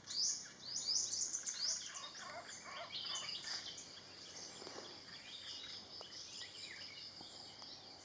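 Forest birds calling: a quick series of high, downward-sliding chirps in the first two seconds, then fainter scattered chirps over a steady high insect drone.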